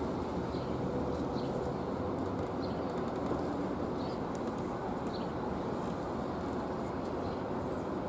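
Steady low background rumble, with faint short high bird chirps about once a second.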